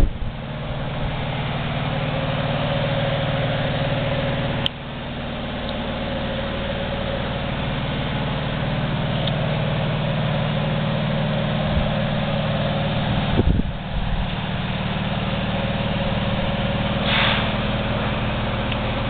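Ingersoll Rand 80-gallon vertical two-stage air compressor, driven by a three-phase electric motor, running steadily with a constant hum and pump clatter. A click comes about five seconds in, a knock about two-thirds of the way through, and a short hiss of air near the end.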